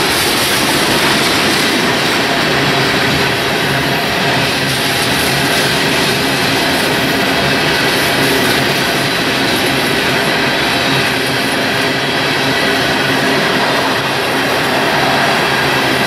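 Hopper cars of a BNSF freight train rolling over a steel deck-girder railroad bridge overhead: loud, steady rumble and clatter of wheels on rail that carries on without a break.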